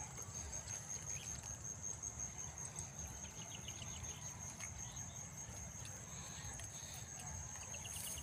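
Field insects keeping up a steady, high-pitched, unbroken trill. Two short runs of rapid chirps come about three seconds in and again near the end, over a low rumble.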